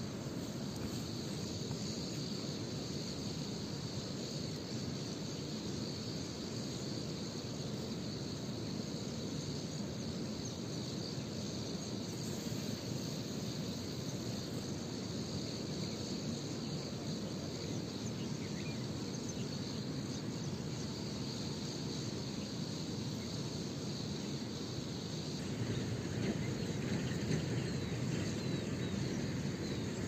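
Steady insect chirring over a constant low outdoor background noise; the background grows slightly louder near the end.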